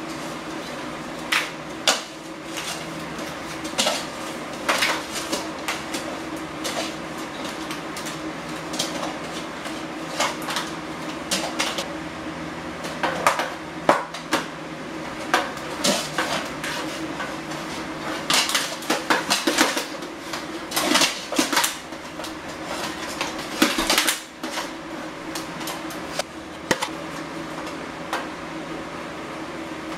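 Steel plate armour (helm, breastplate, pauldrons and arm plates) clanking and rattling irregularly as the wearer moves in it, over a steady low hum.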